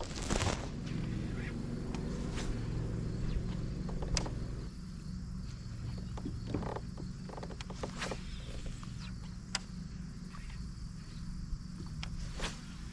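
Steady outdoor chorus of insects, a high continuous buzz, with scattered small clicks and knocks of handling on the kayak.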